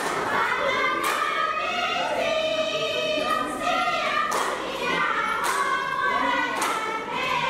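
A group of women singing a Tharu folk song in unison, with a sharp percussive beat about once a second.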